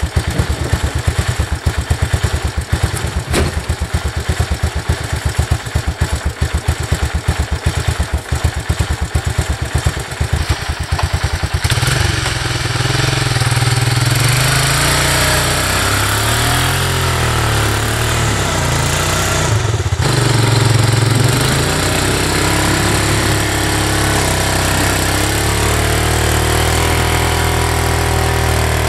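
A 250 cc three-wheeler's single-cylinder engine idling with rapid, even beats. About twelve seconds in it is revved and runs under load, its pitch rising and falling, as it drags a fridge through the snow on a rope; it then settles to a steady run.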